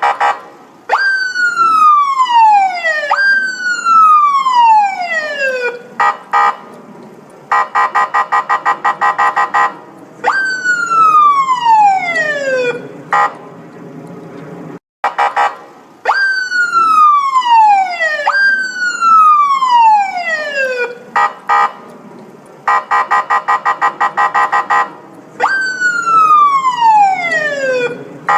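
Police siren sounding a falling wail: each tone jumps up and slides down over about two seconds, several times in a row. A fast pulsing tone of about seven beats a second breaks in, and the pattern repeats roughly every fifteen seconds over a low rumble.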